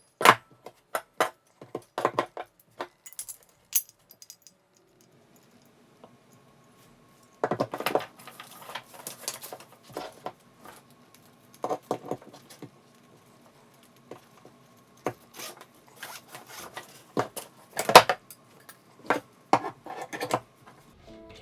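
Metal parts of a tree-mounted camera arm clicking, knocking and rattling as they are handled and fitted together by hand. There is a run of sharp clicks, a pause of a few seconds, then more knocks and rattles, with one louder knock near the end.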